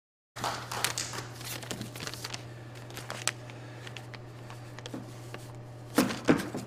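Crumpled sheet of paper being unfolded close to a microphone, with scattered crinkling and rustling over a steady low hum. Near the end come two louder bumps as the microphone is taken in hand.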